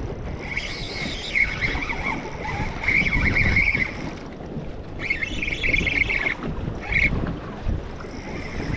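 Fishing reel whirring in bursts, a buzzing rattle repeated about four times, over a steady rumble of wind and water against a boat.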